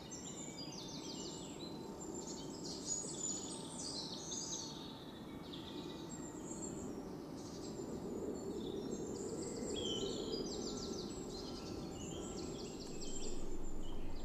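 Many small birds chirping over a steady low rush of outdoor background noise.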